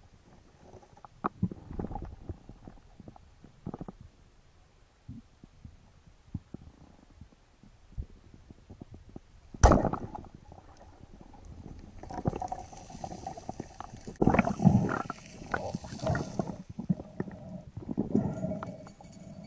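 Underwater: a speargun fires with one sharp crack about ten seconds in. It is followed by a long run of knocks and scuffling as the speared fish is brought in and handled. Faint scattered clicks come before the shot.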